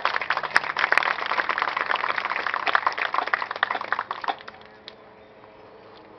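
Crowd applauding, a dense patter of many hand claps that dies away about four and a half seconds in.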